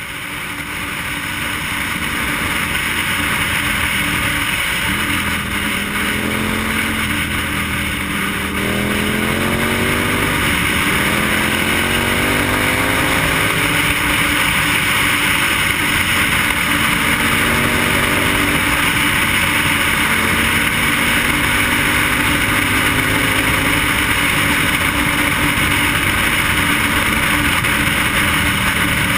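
Wind rushing over a helmet-mounted microphone on a KTM motorcycle at road speed, fading in at the start. The engine note rises as the bike accelerates, with a brief drop at a gear change about ten seconds in, and rises again a little before twenty seconds.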